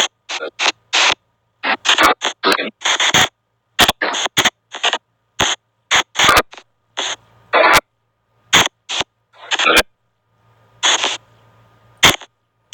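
Spirit box app on an Android phone playing short, choppy bursts of static and radio-like sound that cut in and out irregularly with brief silences between them.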